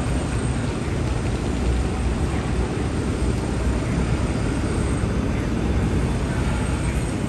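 Steady city street ambience, mostly a low rumble of traffic.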